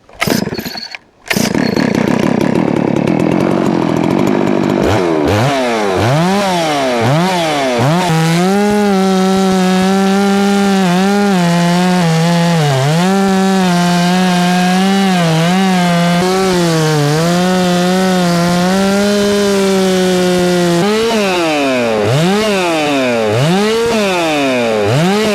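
FarmMac F 669 chainsaw cutting through a pecan log. The throttle swings up and down a few times, then the saw holds at high revs in the cut for about twelve seconds, its pitch dipping now and then where the chain meets a big knot. Near the end the revs swing up and down again before it stops.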